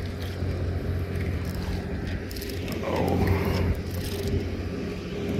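A hooked peacock bass splashing at the water's surface as it is hauled in, the splashing strongest about three seconds in, over a steady low motor hum.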